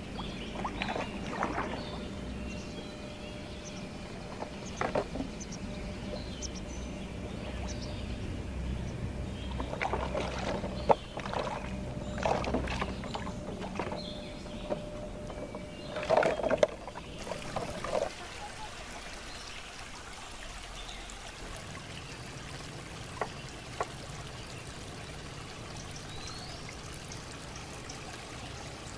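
Shallow water sloshing and splashing in irregular bursts as someone wades through it and reaches into it to pick up floating plastic bottles. After about 18 seconds the splashing stops, leaving a quieter steady background with a couple of light knocks.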